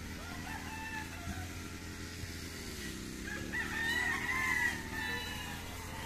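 Gamecocks crowing. A faint crow comes near the start, then a louder, nearer crow about three and a half seconds in lasts over a second.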